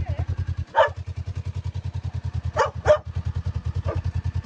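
Kawasaki ER-6 650 cc parallel-twin engine idling with a steady, even exhaust beat, running on its first start after standing for over a year. A dog barks four times over it, two of the barks in quick succession.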